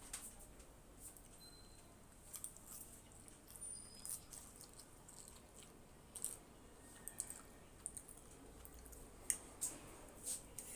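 Close-miked eating of Maggi masala instant noodles: chewing and wet mouth sounds with irregular soft clicks and smacks.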